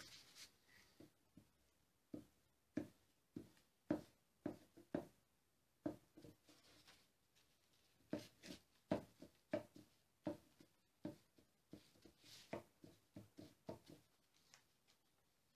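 Hands handling paper templates on wooden boards: scattered light taps and knocks, with brief rustles of paper and a glue stick rubbed over the paper.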